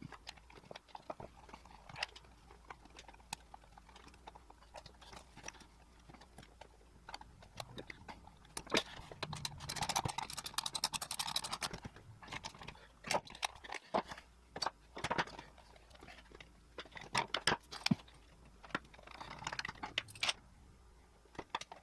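Scattered metallic clicks, clinks and scrapes of chainsaw parts being handled, most likely the guide bar and chain being fitted. There is a denser run of rattling about ten seconds in.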